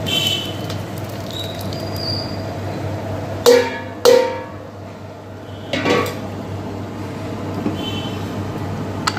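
Metal bowl clanging against the rim of a large metal cooking pot as fried eggs are emptied into boiling curry. There are two loud ringing strikes about half a second apart midway, then a weaker clang, over a steady low hum.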